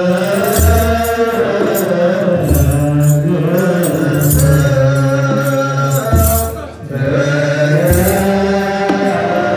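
Ethiopian Orthodox liturgical chant: a group of men singing slowly in unison. A kebero drum beats deeply about every two seconds, and hand sistrums (tsenatsel) rattle faintly.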